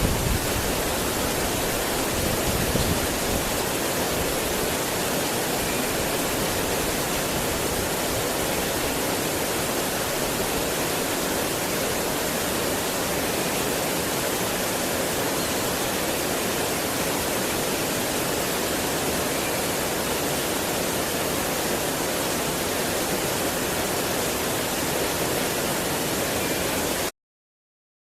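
Steady rushing noise of running water, even and unbroken, that stops abruptly about a second before the end.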